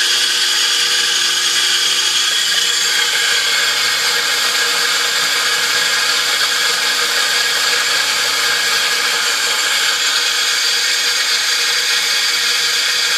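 MH-2000-6SP stone grain mill running under load, its electric motor turning the twill-cut grindstones that mill dried chili into fine powder. It gives a steady whirring hiss that does not change.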